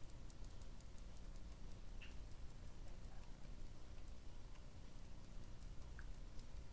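Faint, irregular soft clicking from a makeup sponge being dabbed against the skin to blend concealer, many small ticks a second.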